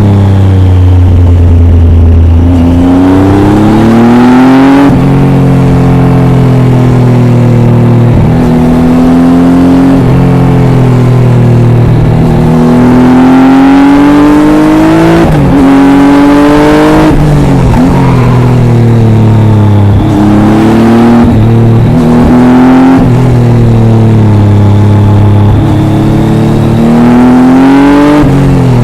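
Triumph Tiger 800 XRx's three-cylinder engine through an Arrow exhaust, heard onboard while riding: the engine note climbs in repeated sweeps under acceleration and drops back at each gear change or roll-off, with stretches of steady cruising in between.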